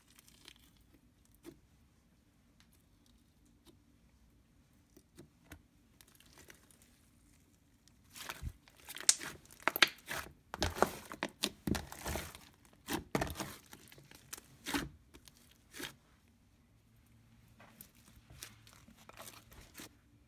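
Hands kneading and stretching a large batch of mixed slime, with sticky popping, crackling and squishing. It is sparse and faint for the first several seconds, then a dense run of loud pops and crackles from about eight seconds in to about sixteen.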